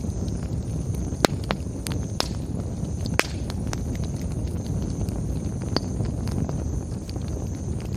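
Wood campfire burning: a steady low rumble with irregular sharp crackles and pops, the loudest a little over a second in and about three seconds in.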